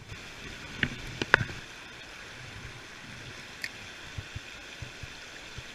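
Steady rush of flowing river water, with a few sharp clicks about a second in and some soft low knocks later.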